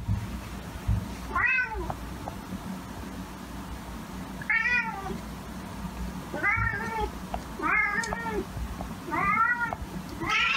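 Domestic cat meowing over and over: five short meows, each rising then falling in pitch, spaced a second or two apart, with a longer meow starting near the end.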